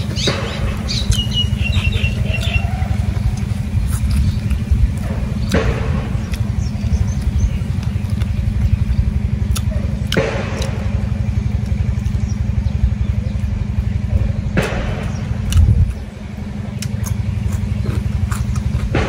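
A steady low rumble with a person eating over it, chewing grilled pork bones. Four short, sharp mouth sounds come a few seconds apart, and a short high chirp sounds about a second in.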